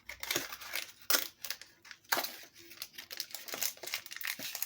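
A small taped-shut card box being pulled open by hand: irregular crinkling and tearing of tape and packaging, with a few sharp snaps.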